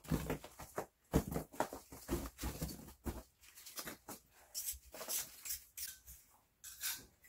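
Plaster-silica investment mould being broken away from cast glass: irregular crunching and crumbling of plaster chunks pulled off by hand. In the second half a hand tool scrapes at the mould.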